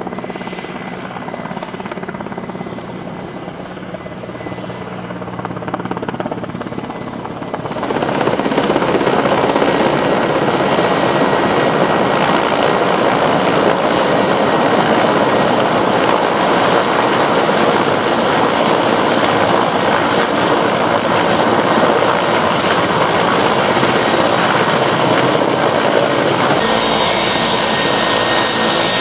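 Mil Mi-17 helicopter's rotor and twin turboshaft engines, fairly distant at first as it approaches. From about eight seconds in it is loud and close as it comes down onto the landing pad.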